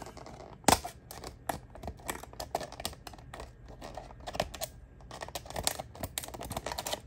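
Scissors cutting along the edge of a stiff clear plastic clamshell package: an irregular run of snips, clicks and crackles of plastic, the sharpest about two-thirds of a second in.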